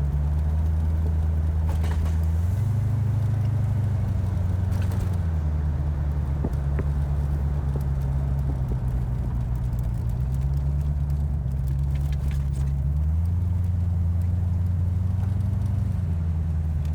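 1982 Ford Bronco's 351 Windsor V8 running through a Black Widow Neighborhater muffler while driving: a steady, deep exhaust drone that rises in pitch twice and settles back each time.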